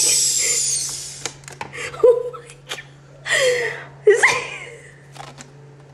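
Air hissing out of a rubber balloon's neck as the balloon deflates over a phone, shrinking onto it; the hiss dies away about a second in. A few sharp clicks of the rubber being handled follow, and a woman laughs briefly twice.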